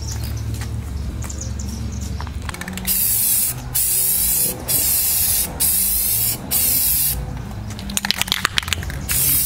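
Aerosol spray can hissing in short bursts, about five in a row starting three seconds in, spraying black paint onto the masked grill mesh. Near the end a brief rattle, then another burst of spray.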